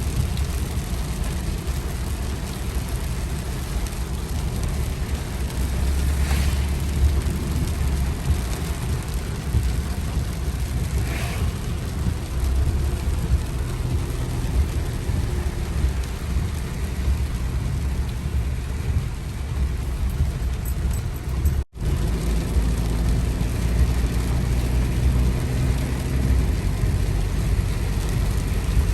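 Steady deep rumble of wind and road noise, as from a moving car, with the sound cutting out for an instant about 22 seconds in.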